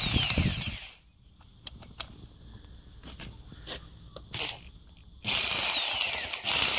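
Power saw cutting into a Hebel aerated concrete block, its whine falling in pitch. It stops about a second in, leaving a few seconds of light knocks. It starts cutting again about five seconds in.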